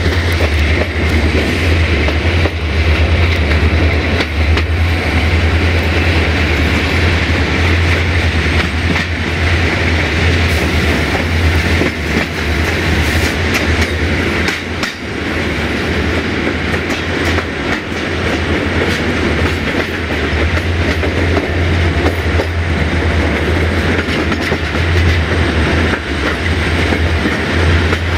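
Passenger train running, heard from an open coach window: steady rolling rumble and rushing air, with wheels clicking over rail joints throughout.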